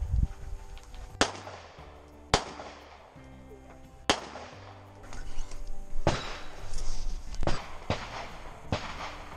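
Background music with held notes and a bass line, cut through by about seven sharp gunshot cracks at irregular intervals, each with a short ringing tail.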